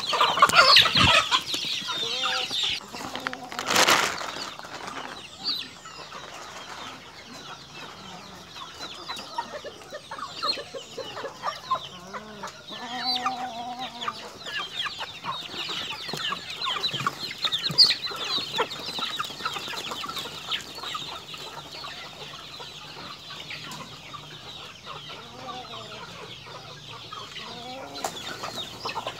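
A flock of chickens clucking and calling over one another without pause, loudest in the first couple of seconds, with a brief loud noise about four seconds in.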